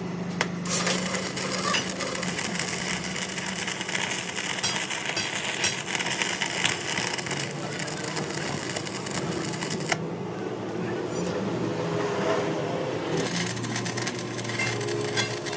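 Metalworking machinery at work on a truck axle: a dense crackling hiss full of fine ticks over a low steady hum, thinning for a few seconds from about ten seconds in.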